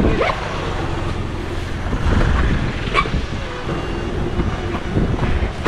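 Wind buffeting the body-worn camera's microphone in a steady low rumble, with the rustle of a bag being handled and a sharp click about three seconds in.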